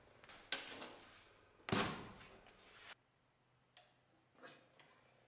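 Two sharp knocks about a second apart as the iron head of a forged mason's hammer is knocked against a wooden workbench. Then come a few faint clicks from the door latch of a small electric muffle furnace as it is opened.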